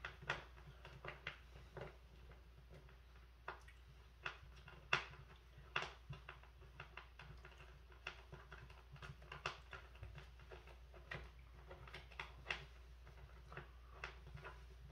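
Faint, irregular light clicks and taps, a few a second, from M6 bolts and small metal chair hardware being handled and started by hand, finger tight; the sharpest tap comes about five seconds in.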